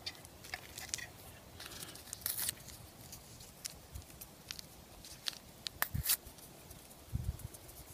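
Small paper pepper packets being torn open and handled, with papery rips and rustles and a few light clicks. The two louder rips come about two seconds in and about six seconds in.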